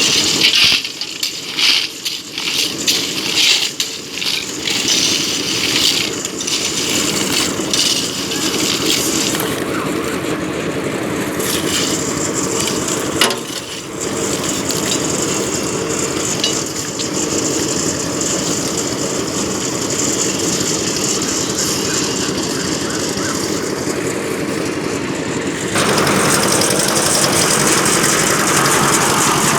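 Concrete mixer machine running with a steady engine drone, with many sharp knocks and clatter in roughly the first ten seconds. The sound turns abruptly louder and brighter near the end.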